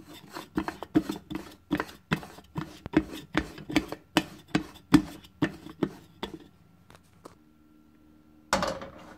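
Aluminium stovetop espresso maker (moka pot) being screwed together: a run of sharp clicks and scrapes, about two or three a second, as the top chamber is twisted down onto the base. After a pause, a short clatter near the end as the pot is set down on the gas stove's grate.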